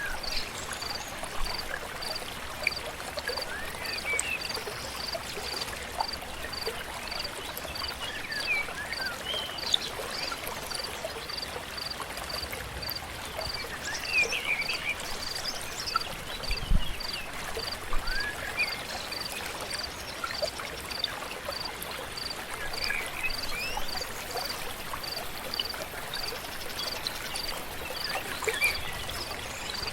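Forest stream flowing steadily, with scattered short bird chirps and a high call that repeats evenly about once every three-quarters of a second. There is one low thump about two-thirds of the way through.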